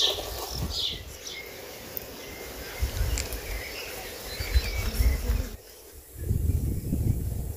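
Outdoor summer ambience: birds chirping and insects, with a sharp knock at the very start and low rumbles on the microphone coming and going.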